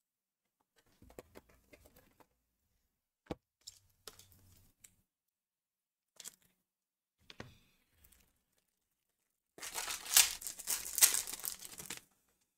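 Foil wrapper of a Topps trading-card pack torn open by hand, a loud ripping that lasts about two seconds near the end. Before it there are faint scattered taps and rustles of the pack being handled.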